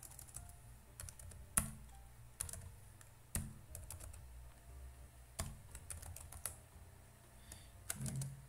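Computer keyboard being typed on: scattered keystrokes in short irregular runs with pauses between them.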